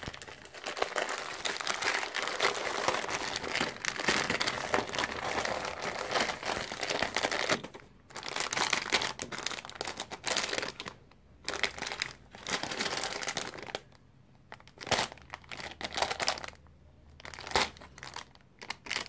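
Thin plastic packaging crinkling as it is handled: first the grey poly mailer bag, then the clear plastic wrapping around a fabric pouch. A dense, unbroken rustle runs for the first seven or so seconds, then gives way to shorter separate bursts of crinkling.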